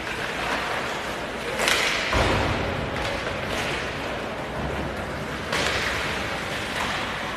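Ice hockey play on a rink: skate blades scraping the ice in short hissing bursts, with a dull thud about two seconds in.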